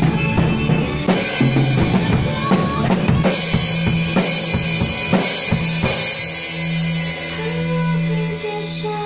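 Acoustic drum kit played by a child: a fast run of snare and tom hits with a cymbal crash about three seconds in, the last strikes around six seconds in, then cymbals ringing out over a backing track.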